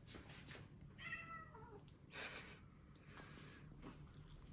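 A house cat meowing once about a second in, a single faint meow that falls in pitch, followed by a few soft rustles.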